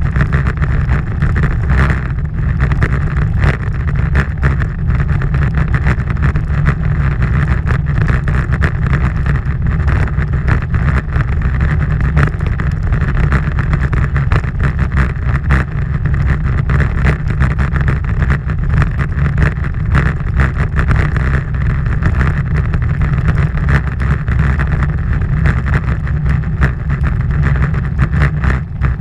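Steady wind buffeting on the microphone of a moving action camera: a loud low rumble with a rushing hiss above it, along with road noise from travelling over asphalt.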